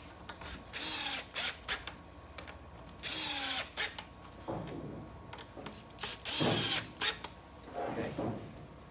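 Power drill running in about four short bursts, each a second or less, with its pitch sliding as it runs: screws being driven into the wooden chair.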